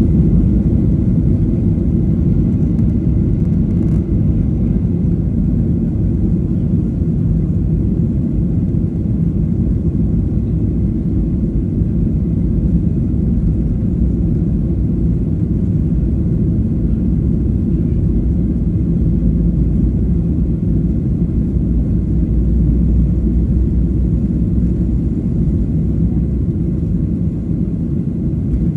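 Cabin noise of a Boeing 737 on its takeoff roll, heard from a window seat over the wing: the jet engines at takeoff power and the wheels on the runway make a steady, deep rumble.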